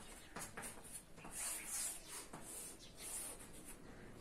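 Chalk writing on a chalkboard: a series of faint, short scratching strokes, the loudest about one and a half seconds in and again around three seconds.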